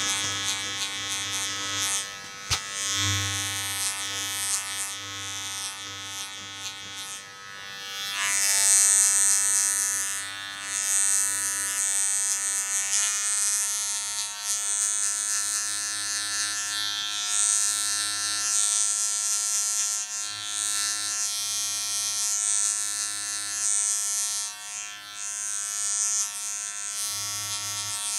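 Electric hair clippers running with a steady buzz, with a hiss that comes and goes every second or two as the blade passes through hair during a haircut.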